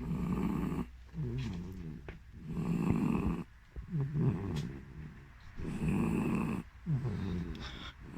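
A sleeping dog and cat snoring together: three loud snores about three seconds apart, with softer breaths between them.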